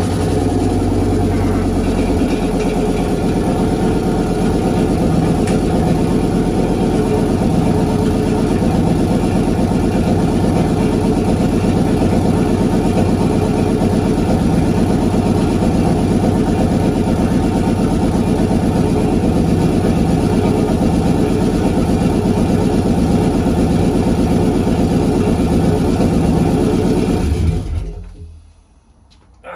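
Audi Coupe GT's 2.2-litre KV five-cylinder engine running loud and steady on its first start after a full strip-down and rebuild, with no exhaust system fitted. It is shut off near the end and cuts out quickly.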